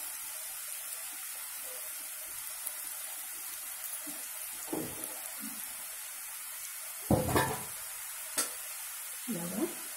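Strips of nimki dough deep-frying in hot oil in a steel pan: a steady sizzle and bubbling, with one louder thump about seven seconds in.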